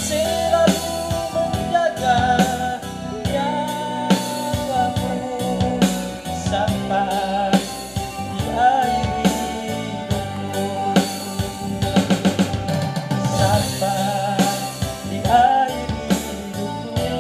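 A man singing a gospel praise song through a microphone, over electronic keyboard accompaniment with a steady drum beat.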